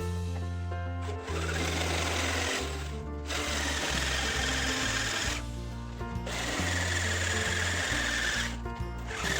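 Power tool working the sheet steel of a car door in three runs with short breaks between them. Its whine dips slightly in pitch as it bears on the metal. Background music plays underneath.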